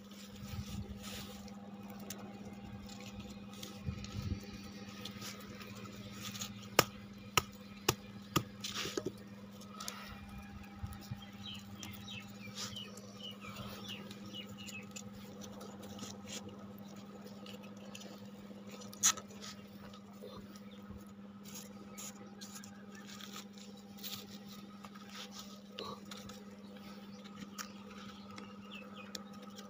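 Pieces of dried cow-dung cake being broken and handled by hand: faint scratching and crumbling, with a few sharp cracks about seven to nine seconds in and a louder one near the twenty-second mark, over a steady low hum.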